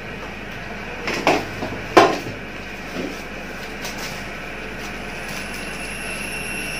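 A few short knocks about a second apart, the middle one loudest, as a plate is lifted and handled on a table, over a steady low hum.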